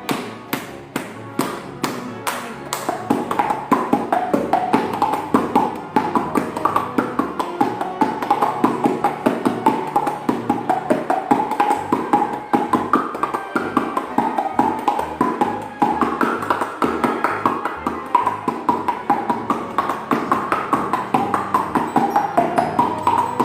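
Music made with hands and mouth: rhythmic hand tapping at about two to three beats a second, joined about three seconds in by a tune from the mouth that moves up and down in pitch.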